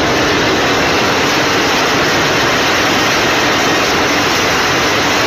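Fast-flowing floodwater rushing in a torrent: a loud, steady roar of water.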